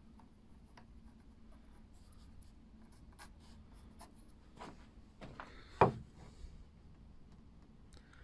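Pencil scratching short marks on beech wood, with faint clicks and rubbing of hands and a wooden block. One sharp knock about two-thirds of the way in as the beech offcut is shifted on the door.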